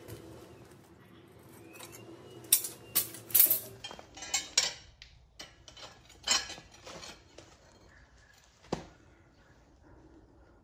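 Steel lifting tongs and a red-hot crucible clinking and clanking as the crucible is set down on firebricks: a quick run of sharp metal clanks about two and a half to five seconds in, a few more around six seconds, and a single one near nine seconds. A low steady hum runs under the first four seconds and then stops.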